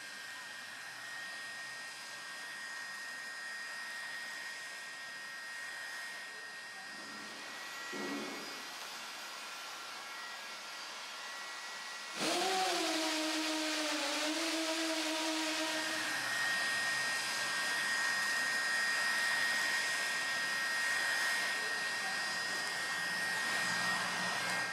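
Hand-held heat gun running, its fan blowing steadily with a thin high whine. It gets louder about halfway through, and a lower hum comes in for a few seconds.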